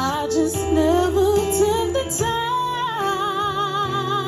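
A woman singing live over an instrumental backing of sustained chords and bass. She sings a short rising phrase, then holds a long note with wide vibrato through the second half.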